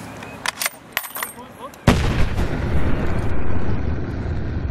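Outro sound effect: a sudden loud boom about two seconds in, running on as a sustained low rumble, with a few sharp clicks just before it.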